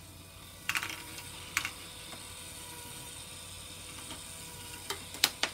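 Lego Technic ball picker module starting up about a second in with a click, then running steadily: a small motor and its plastic gear train hum and whir, with a few sharp clicks from the mechanism, the loudest near the end.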